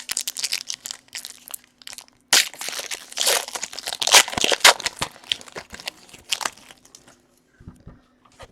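Trading card pack wrappers crinkling and tearing as packs are ripped open and the cards handled, in dense rapid crackles that die away after about six seconds. A faint steady hum sits underneath.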